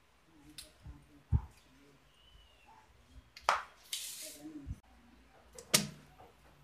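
Hard metal transmission parts being handled and set down on a workbench: a few separate sharp knocks and clatters, with a short scraping hiss about four seconds in.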